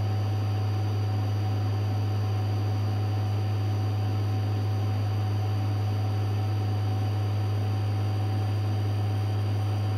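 Metcal HCT2-120 hot air pencil blowing hot air at 3.5 litres per minute, reflowing solder paste on surface-mount capacitor pads: a steady, even hiss of airflow over a low, steady hum.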